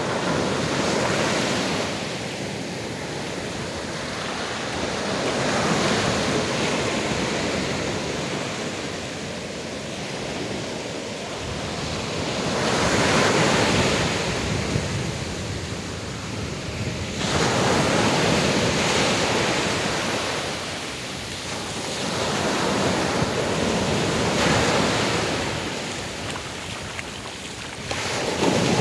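Small sea waves breaking and washing up over a sandy beach, the surf swelling and falling back every four to six seconds.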